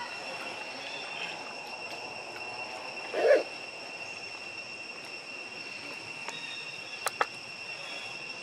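Steady high-pitched insect drone, with one short loud sound about three seconds in and two sharp clicks close together near the end.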